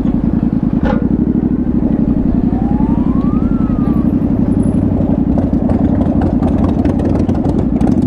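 2022 Yamaha Ténéré 700's 689 cc parallel-twin engine running steadily through a Dominator GP1 aftermarket exhaust, its exhaust pulses even and unchanging, with a single sharp click about a second in.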